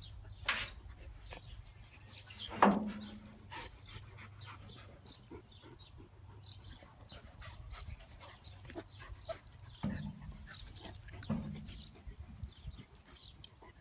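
Two dogs play-fighting, with short whines and yips throughout. There is one loud cry falling in pitch about two and a half seconds in, and two shorter barks near ten and eleven seconds.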